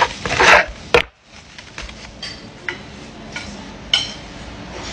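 Crust of a fresh-baked loaf crunching as it is cut open with a knife on a wooden board, loud in the first second. After that come a few light taps and clinks as the halves are handled.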